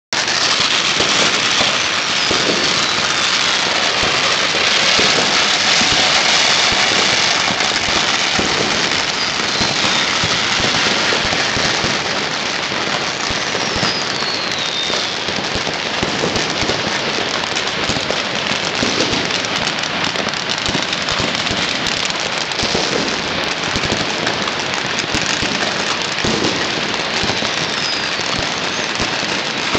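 Chinese New Year firecrackers and fireworks going off all over the city at once, a continuous dense crackle of countless small bangs, with a few thin whistles falling in pitch.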